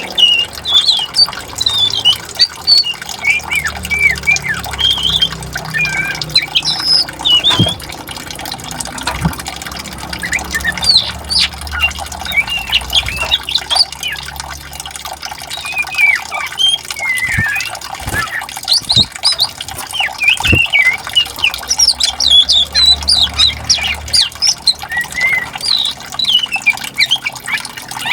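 Songbirds chirping and calling busily in quick, overlapping phrases over the steady rush of flowing water. A few brief sharp taps sound in the middle stretch.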